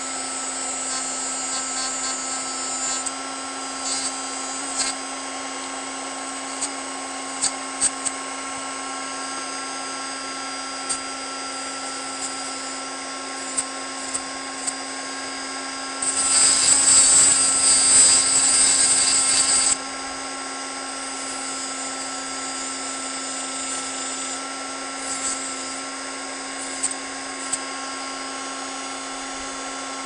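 Dremel rotary tool running steadily at high speed with its cut-off wheel, giving a constant whine broken by short scrapes as the wheel grinds the end of a key. A louder stretch of grinding lasts about four seconds, a little past the middle.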